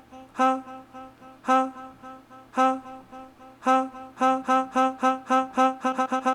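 A sequenced preset of Arturia's Augmented Voices software instrument, with a reedy, horn-like tone, playing one repeated note: a loud hit about once a second with softer repeats in between, the repeats quickening near the end.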